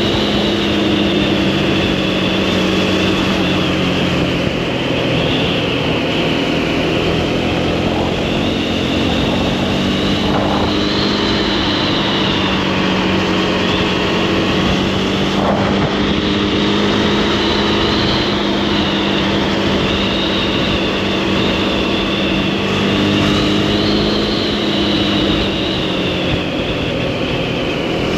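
Motorcycle engine running under steady throttle while riding along a road, its note holding fairly even with small rises and falls, with wind rushing over the microphone.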